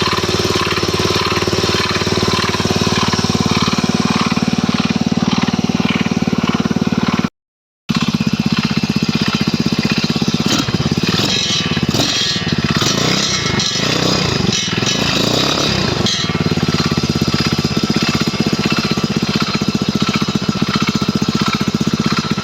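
Stels Kapitan engine running with a fast, steady knocking after reassembly; the owner suspects the starter's overrunning clutch is catching on something.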